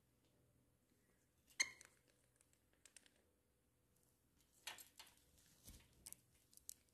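Chandelier crystal pendants clinking and tapping against each other and their wire hooks as pet birds climb among them. One sharp clink comes about a second and a half in, then a scatter of lighter clinks and taps in the second half.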